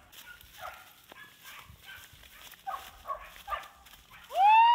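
Hunting dogs barking and yelping: scattered short, fainter yelps, then one loud yelp that rises and falls in pitch near the end.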